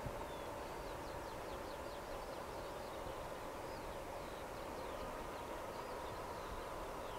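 Embraer ERJ-145 regional jet's two Rolls-Royce AE3007 turbofans at takeoff power, heard from afar as it climbs away: a steady jet roar with a held hum in it. A small bird chirps in quick runs over it.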